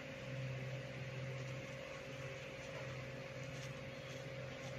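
Steady mechanical room hum with a constant faint tone and an even hiss underneath.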